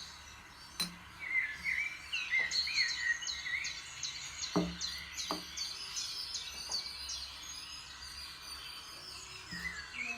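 Small birds chirping and twittering in quick, overlapping calls, with a few sharp taps in between.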